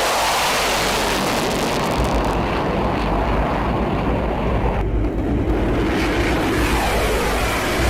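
Jet aircraft engine noise: a loud, steady roar, with a whining tone that bends in pitch in the second half.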